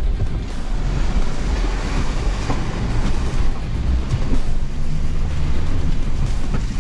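Toyota Hilux pickup driving over rough off-road ground: engine running with a deep rumble, body and suspension rattling, and a few separate knocks.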